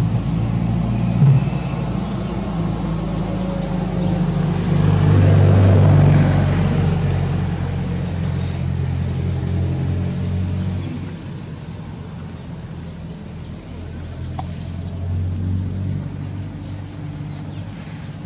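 Low engine drone of passing motor traffic, swelling about five seconds in and fading after the middle, with small high bird chirps over it.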